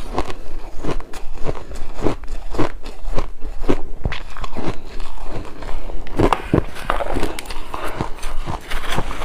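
Shaved ice being bitten and chewed close to the microphone: a fast run of crunches and crackles, several a second.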